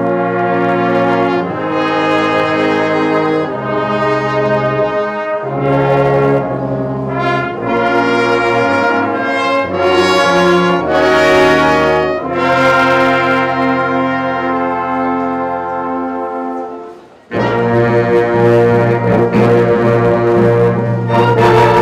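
Symphonic wind band playing slow, sustained chords led by the brass, the harmony shifting every second or two. Near the end the music breaks off for a moment and a louder, busier passage starts abruptly.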